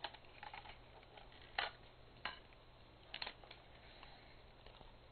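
Several faint, sharp plastic clicks and knocks from handling a small portable TV while its internal batteries are taken out. The loudest click comes about a second and a half in.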